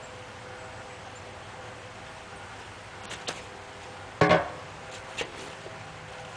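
Handling noises: a few light clicks, then one solid thump about four seconds in and another click a second later.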